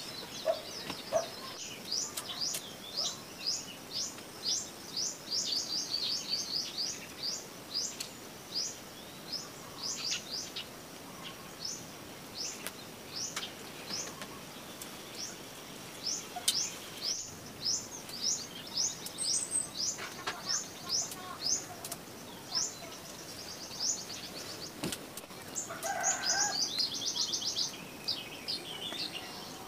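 Bird chirping: a long series of short, high chirps, a few a second, with a quicker, louder run and a lower call together near the end.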